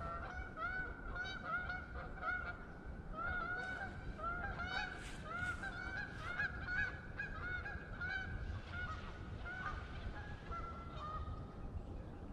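A flock of geese honking, many calls overlapping at first and thinning out toward the end.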